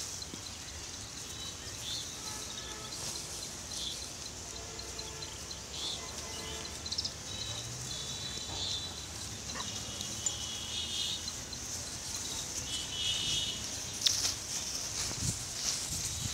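A herd of pigs foraging in dry litter and rubbish: steady outdoor noise with rustling, and a few short high chirps about halfway through and again a few seconds later.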